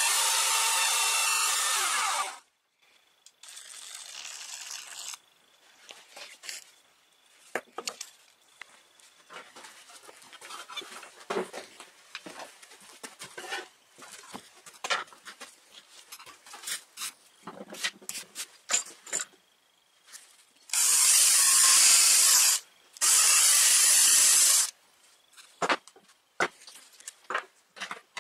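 Electric belt sander running, cutting off about two seconds in. Then scattered light knocks and clicks of wooden parts being handled, and near the end two loud bursts of a power tool, each about two seconds long.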